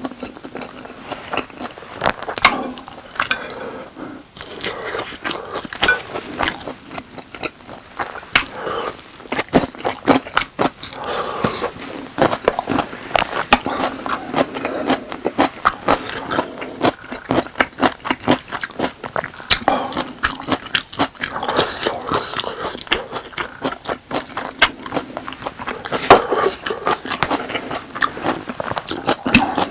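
Close-miked chewing of boneless sauced chicken with rice: a dense, irregular run of short wet clicks and smacks, with some scraping.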